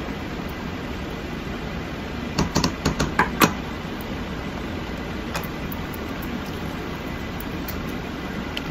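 Wooden spatula and bowl knocking against a steel cooking pot a handful of times in quick succession, about two and a half to three and a half seconds in, as blended celery is scraped into the sauce, with one more knock a couple of seconds later. Under it runs a steady background hum.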